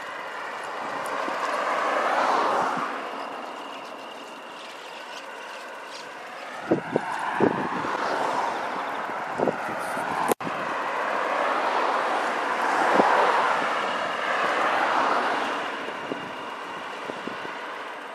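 Several vehicles passing one after another on a road, their tyre and engine noise swelling and fading. A few short thumps near the middle.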